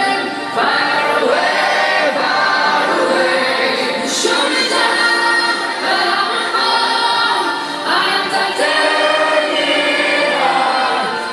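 Live dance music in a breakdown: many voices singing together like a choir, with no drum beat, heard loud from within the festival crowd.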